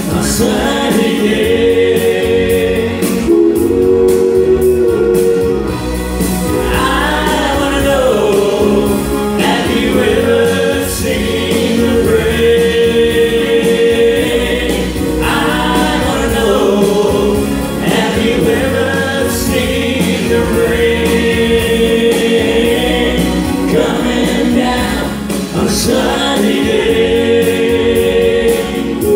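Live country music: a harmonica solo played into a cupped microphone, long held notes with several bends, over electronic keyboard backing.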